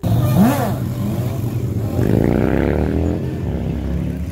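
Sportbike engine revving hard while the rider pulls a wheelie. The pitch climbs twice: a short rev about half a second in, then a longer rise between two and three seconds.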